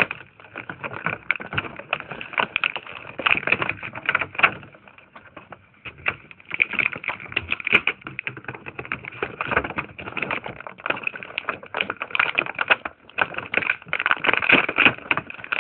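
Action-figure packaging being handled and opened: plastic blister and cardboard crackling, with a dense, irregular run of clicks.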